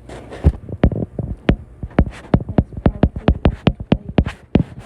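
A pen writing at close range: a rapid, irregular run of sharp taps and clicks, about five a second, with short scratching strokes between them.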